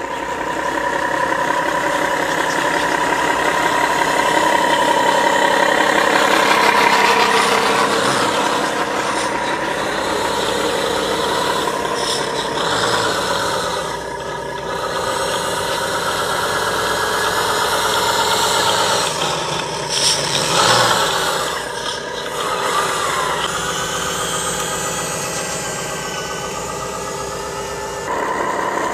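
Diesel truck engine sound, as played by a scale RC truck's sound unit, running steadily and revving up and down, with a brief louder surge about two-thirds of the way through.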